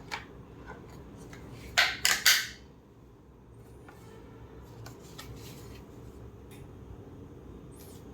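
Handling noise from taking apart a steam iron: a few light clicks, then three loud, sharp clattering knocks close together about two seconds in, over a low steady hum.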